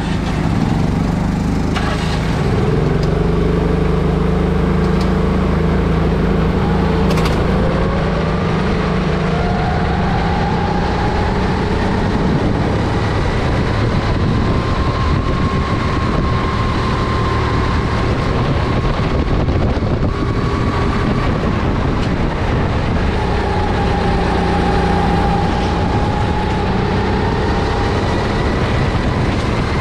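Single-cylinder Honda GX270 four-stroke engine of a Sodi RT10 kart running under load. Its pitch climbs steadily over several seconds as the kart accelerates, holds, drops briefly about twenty seconds in, then climbs again.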